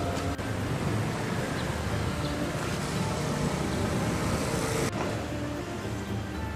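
Street traffic noise from passing road vehicles, swelling until about five seconds in, where it breaks off suddenly into a slightly quieter street ambience.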